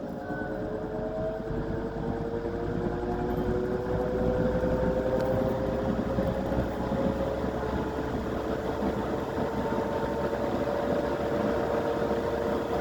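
Sears box fan spinning up: a motor hum over rushing air, its tone slowly rising in pitch as the blades gather speed. It grows louder over the first few seconds, then holds steady.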